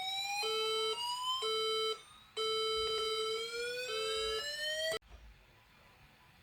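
Synthetic electronic alarm: a tone gliding slowly upward in pitch, overlaid by a lower, buzzy tone that beeps on and off about once a second. It breaks off briefly about two seconds in and stops abruptly about five seconds in.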